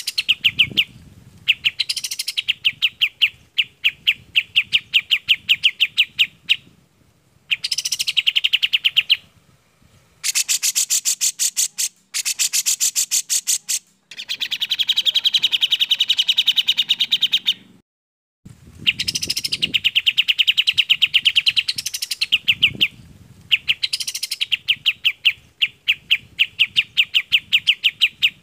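Songs of kapas tembak and cucak jenggot (grey-cheeked bulbul), cage-bird bulbuls played as training song. They come as fast runs of clear, high repeated notes in phrases a few seconds long, broken by short pauses, with a brighter, fuller phrase about halfway through.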